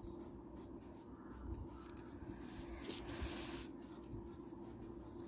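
Faint handling noise: a brief soft rubbing against the paper worksheet about three seconds in, over a low steady hum.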